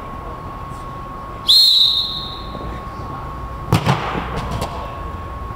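Referee's whistle blown once in a single sharp, high blast about a second and a half in, the loudest sound here; about two seconds later a single thud of a hard knock.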